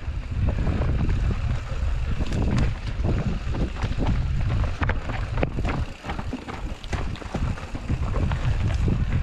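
Rocky Mountain Slayer Carbon 50 mountain bike being ridden on a trail: heavy wind rumble on the action camera's microphone, with frequent sharp clicks and knocks from the bike rattling over the ground.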